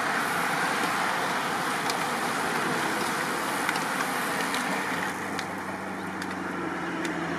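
A pack of road racing bicycles passing close by: a steady rush of tyres and spinning wheels with a few light clicks. From about five seconds in, a low steady hum joins.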